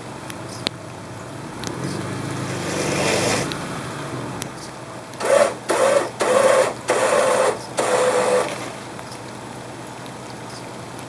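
Electric winch run in four short bursts, each a loud steady whine, over the steady hum of the idling engine of a 1999 Subaru Forester.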